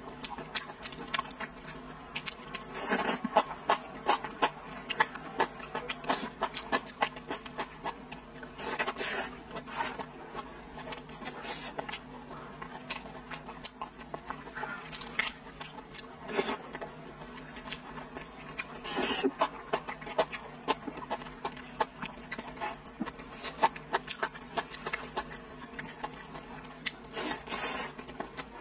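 Close-up mouth sounds of a person eating fatty braised pork belly: wet chewing, lip smacks and mouth clicks in an irregular stream, with a few louder, longer smacks.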